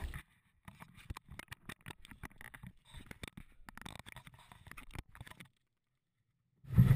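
Faint, irregular clicking from a spinning reel's drag as a hooked carp pulls line off against it; the clicking stops about five seconds in.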